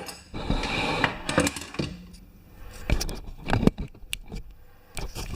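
Irregular metal clanks and knocks of tire tools being handled on a manual tire changer, with a short stretch of rubbing near the start.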